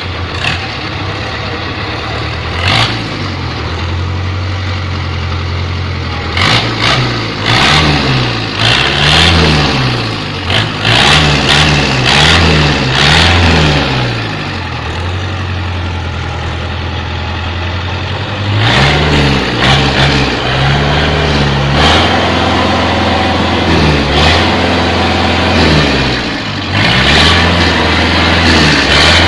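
Caterpillar 3204 four-cylinder diesel engine running just after start-up. It idles, then is revved up and down in a series of quick blips, settles back to idle, and is blipped again in the second half.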